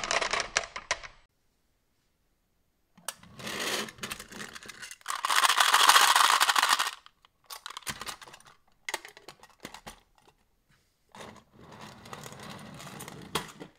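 Marbles clicking down a wooden slope, then marbles rattling and clattering inside a metal Coca-Cola tin truck as it is handled, loudest about five to seven seconds in, with scattered clicks afterwards and a steadier rattle near the end as the tin's lid is put on.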